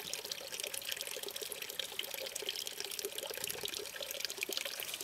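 Steady trickle of water with small drips, running into a small artificial drinking pool.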